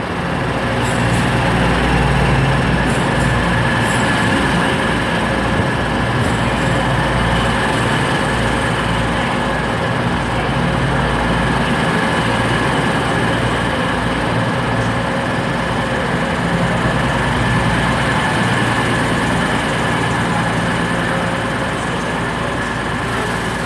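Class 222 Meridian diesel multiple unit running into and along the platform, its diesel engines running steadily with rumbling wheel noise and a few high steady tones over it.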